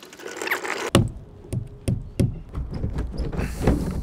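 Knocks and taps from two people handling a wooden shipping crate on a pallet: one sharp knock about a second in, then a run of irregular lighter knocks, with a brief hiss near the end.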